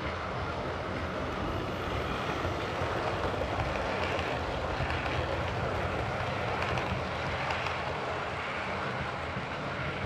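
OO gauge model train running past on the layout track: wheels rumbling on the rails with a steady motor hum, a little louder in the middle as the coaches pass close by.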